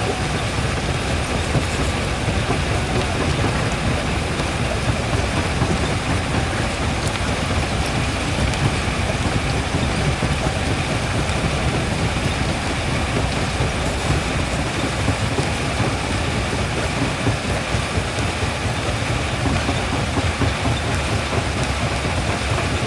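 Primary jaw crusher running, with a steady dense crunching and rattling of rock over a low machine rumble.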